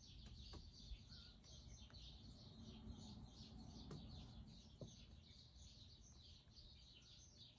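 Near silence with faint, high chirping repeated about three or four times a second, and a few faint light ticks.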